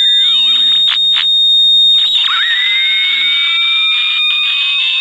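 AM pocket transistor radio's speaker squealing with heterodyne whistles as the tuning dial is turned: a loud steady high whistle, a few clicks of static about a second in, then from about two seconds in two whistles sliding apart, one rising and one falling. The radio is being tried with a test capacitor bridged across its open AVC filter capacitor.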